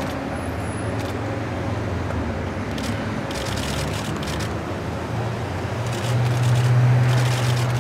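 Street traffic: a low, steady engine hum of a road vehicle that grows louder about six seconds in.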